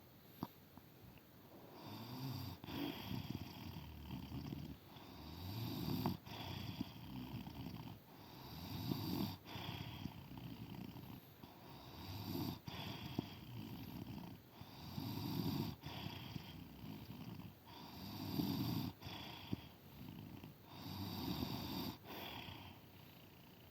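An elderly woman snoring in her sleep, a snore on each breath, swelling and fading about every three seconds.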